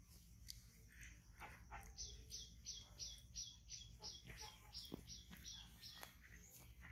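A small bird calling faintly: a run of about a dozen short, high, down-slurred notes, about three a second, starting about two seconds in and stopping near the end.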